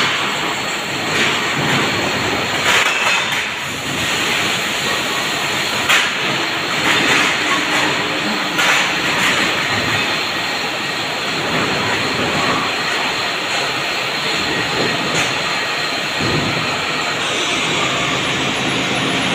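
Steady, loud running noise of a CNC turning lathe and the surrounding workshop machinery, with a few short, sharp clicks scattered through it.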